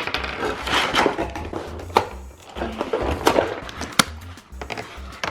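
Hard plastic toy parts being handled and knocked together: shuffling handling noise broken by a few sharp clicks, the clearest about two and four seconds in.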